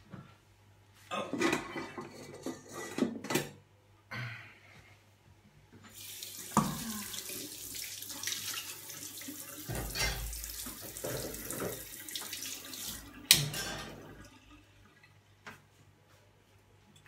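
Kitchen tap running into the sink for about seven seconds, after a few clatters of utensils, and ending with a sharp knock.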